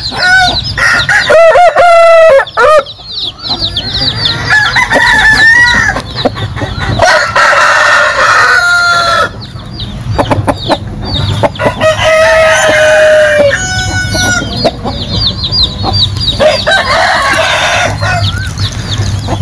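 Gamecocks crowing again and again, with clucking between the crows. Several calls overlap at different pitches.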